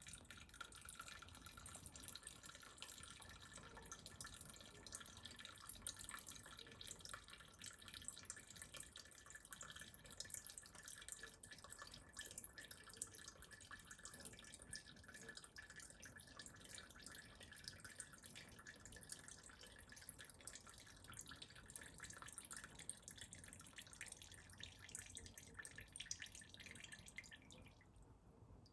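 Petrol draining from the float bowl of a Honda XR650R carburettor in a faint, steady trickle with fine drips, stopping about a second before the end: the bowl being emptied after the float level test.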